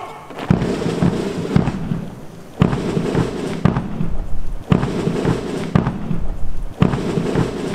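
Four heavy booming hits, evenly spaced about two seconds apart, with a dense rumble carrying on between them.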